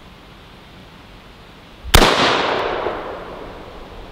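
A single AR-15 rifle shot about two seconds in: one sharp report followed by a trailing echo that dies away over about a second.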